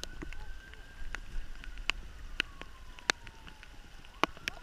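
Raindrops tapping close to the microphone as sharp, irregular ticks over a low wind rumble, with a faint siren slowly wailing down and back up in pitch.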